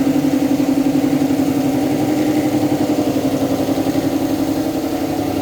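A machine running steadily: a strong, even hum with a fast regular pulse that does not change.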